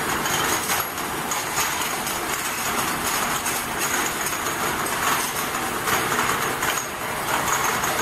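Ultrasonic pharmaceutical bottle washing machine running: a steady mechanical rattle and hiss with small clicks and a faint high whine.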